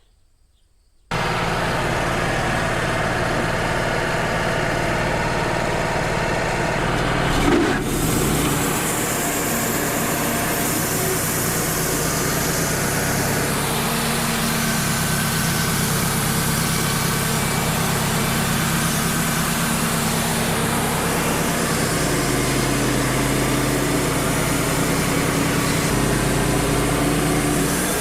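Wood-Mizer LT35 portable sawmill running, its engine driving the band blade through a knotty white pine log; the sound starts abruptly about a second in and stays steady, with a brief louder surge partway through.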